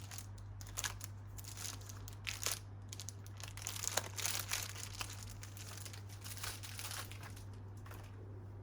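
Plastic packaging crinkling and rustling in irregular bursts as it is handled, dying down near the end, over a steady low hum.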